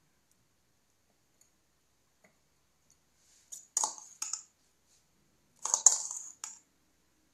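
Metal spoon clinking against a stainless steel mixing bowl: two short clusters of sharp clinks about two seconds apart, the second one the louder, with a few faint ticks before them.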